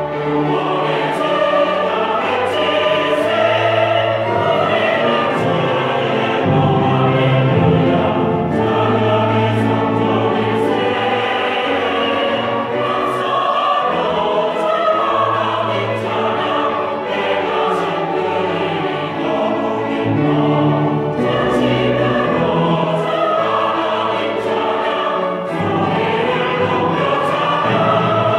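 Church choir singing a Korean praise anthem, many voices in parts, sustained and continuous.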